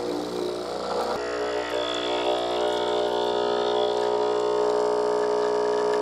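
Breville Barista Express espresso machine's pump running steadily while pulling a double shot, a constant hum with a short click about a second in.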